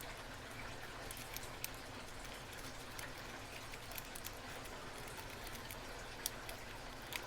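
Faint, scattered small metallic clicks of a lock pick and tension wrench working the pin stack of a small brass lock.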